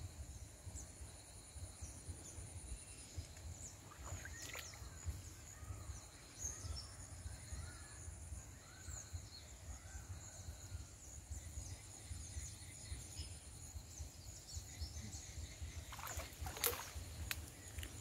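River-bank ambience: a steady low rumble under a high-pitched buzz that stops and starts, with scattered bird chirps. Near the end comes a short cluster of splashes as the cast net is drawn through the water.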